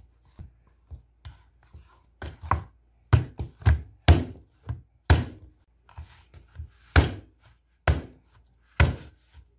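Soft bread dough being slapped and thrown down into a plastic mixing bowl while it is kneaded by hand, giving a string of irregular thuds about one or two a second. The dough is being slammed to work it faster toward a smooth, elastic state.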